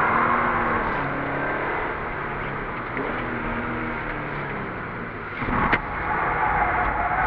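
Toyota GT86's 2.0-litre flat-four engine heard from inside the cabin, its revs rising and falling as the car slides through the corners of a wet track, over a steady rush of tyres and spray. About five and a half seconds in there is a brief louder rushing burst.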